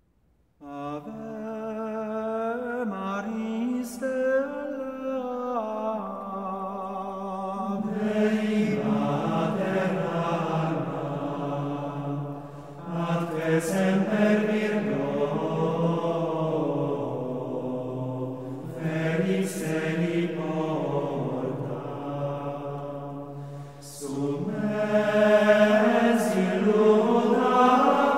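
Slow chant sung by male voices, holding long notes that step up and down in pitch. A single line at first, it grows fuller from about eight seconds in.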